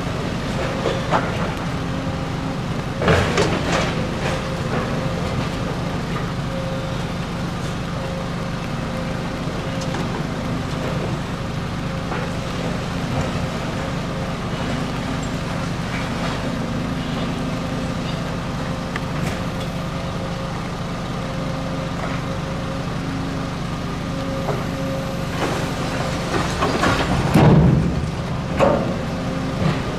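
Hydraulic demolition excavator's diesel engine running steadily as its grab works a pile of broken masonry blocks. Rubble crashes and clatters about three seconds in, and louder, several times near the end.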